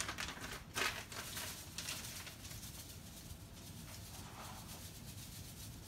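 Plastic bag of dry seafood-boil seasoning crinkling as it is tipped and shaken, with the soft hiss of the seasoning pouring into the pot; crackly in the first second, then a quieter hiss that fades out.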